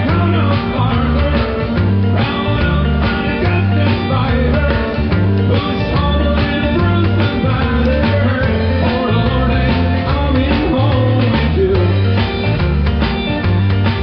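Rock song with guitar, drums and singing.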